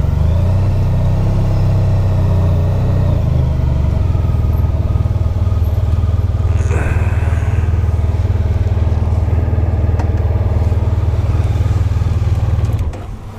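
Motorcycle engine idling steadily, a little louder for the first few seconds, then switched off near the end, cutting out suddenly.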